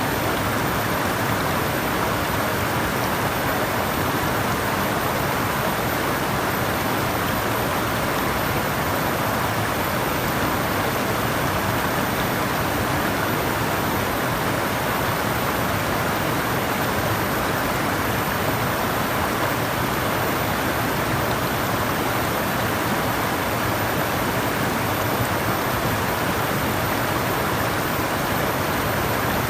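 Flowing water rushing steadily, an even unbroken wash of sound with no separate splashes or drops standing out.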